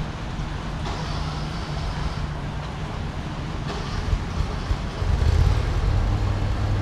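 Steady outdoor rumble with a hiss over it, growing louder about five seconds in.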